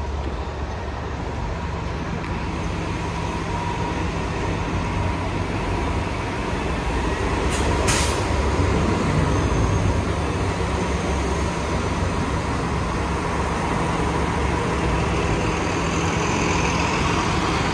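Low-floor transit bus engine idling at the curb, a steady low hum, with a short burst of air hiss about eight seconds in.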